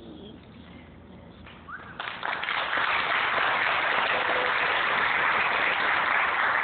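Audience applauding, starting suddenly about two seconds in and holding steady.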